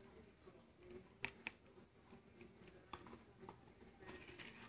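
Faint, sparse light taps: a paper die-cut dragonfly being tapped on a paper plate to knock off excess embossing powder, two taps about a second in and two more around three seconds.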